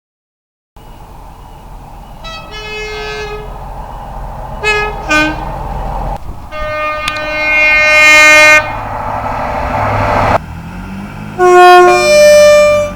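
A run of British train horns sounding over engine and rail noise: a one-second blast, two short toots with the second lower, then a long blast. After a sudden cut, a two-tone horn sounds a low note followed by a high note.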